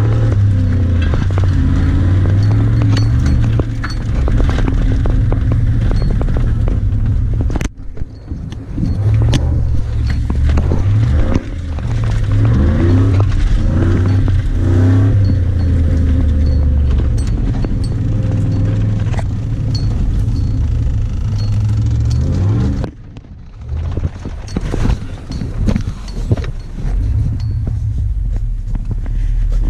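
Pickup truck engine heard from inside the cab on a rough dirt trail, revving and climbing in pitch, then dropping off between gear changes, with sharp dips about 8 s and 23 s in. Cab rattles and knocks come over the bumps.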